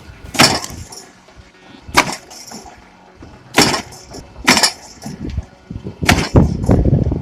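A log splitter splitting firewood: a series of sharp wooden cracks and knocks, about one every second or so, with a low rumble building near the end.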